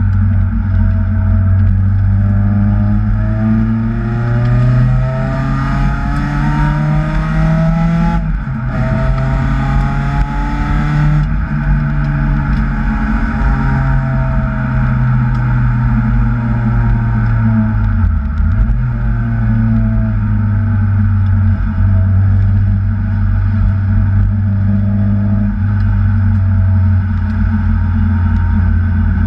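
Supercharged Acura TSX engine under load, its pitch climbing as the car accelerates, breaking briefly about eight seconds in, then climbing again and slowly falling. A dip comes near the middle, and the engine runs steadier toward the end.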